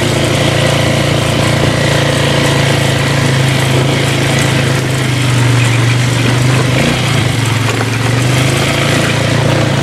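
Four-wheeler (ATV) engine running at a steady pitch while riding along, its pitch dipping and wavering briefly about seven seconds in.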